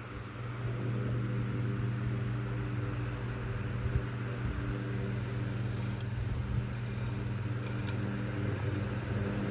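Antique Emerson Electric 12-inch table fan (model 77646-AK) running steadily: a low electric motor hum with the rush of air from the blades.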